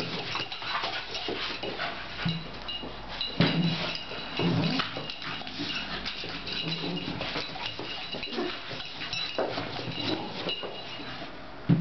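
Two dogs, a Staffordshire bull terrier and a boxer puppy, play-fighting: repeated short, low growls amid scuffling.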